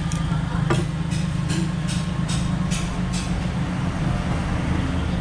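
A steady low motor hum. Over it, for the first three seconds, comes a quick run of about eight light ticks, a little over two a second.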